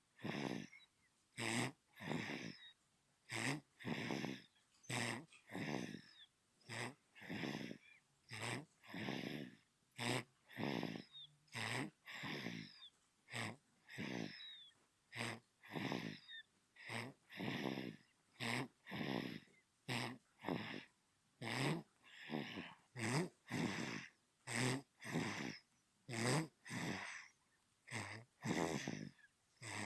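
Newborn baby snoring in its sleep: short, snuffly breaths in a quick, steady rhythm, more than one a second, with brief silent gaps between them.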